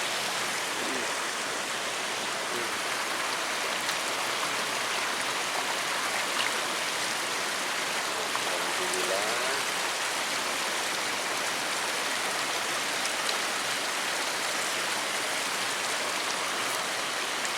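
Steady rushing of water flowing along a stream channel.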